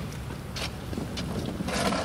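Wind buffeting the microphone as a steady low rumble, with a few faint, sharp knocks.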